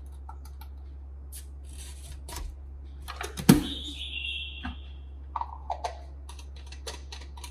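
Light plastic clicks and taps of a formula scoop, baby bottle and formula tin's plastic lid being handled and pressed shut, over a steady low hum. A loud knock comes about three and a half seconds in, followed by a high tone lasting nearly two seconds.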